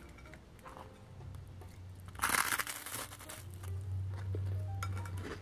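Crisp, toasted garlic-bread crust crunching in one loud burst lasting about a second, roughly two seconds in, with smaller crackles around it over a low steady hum.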